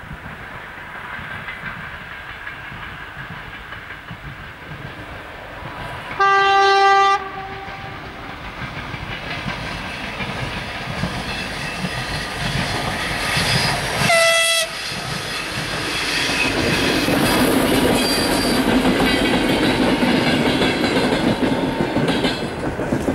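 A TEP70BS diesel locomotive hauling a suburban passenger train approaches and passes. It gives a long, low horn blast about six seconds in and a short, higher blast whose pitch drops at the start about fourteen seconds in. After that the rumble and the clatter of the wheels over the rail joints swell and stay loud to the end.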